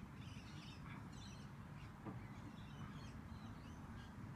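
Domestic tabby cat purring steadily, a low fast rumble, while being stroked on the head.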